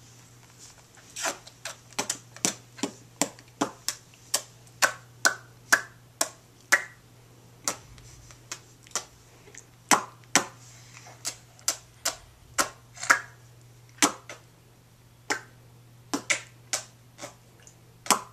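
Sharp mouth clicks, tongue clicks or smacks, repeated irregularly two or three times a second with a short pause about eight seconds in.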